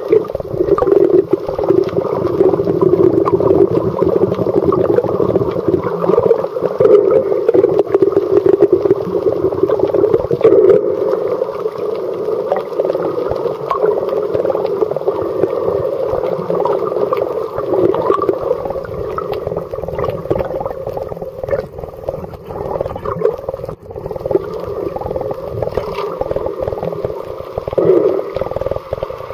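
Muffled underwater noise picked up by a submerged camera: a steady, dense rumble with fine crackling throughout.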